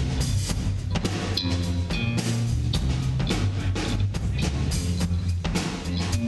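Live rock band playing with electric guitar, bass guitar and a drum kit, the drums keeping a steady beat under the guitars.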